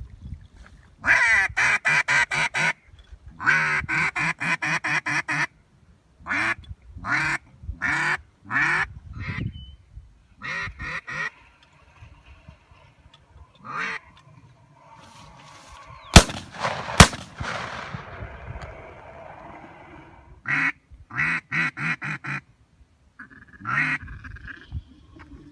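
A duck call blown in quick runs of quacks, then two gunshots less than a second apart, followed by more quacking runs on the call.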